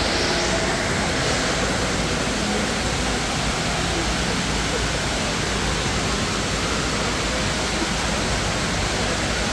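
Steady rush of water from the Dubai Mall's multi-storey indoor waterfall, sheets of water falling down the wall into the pool below.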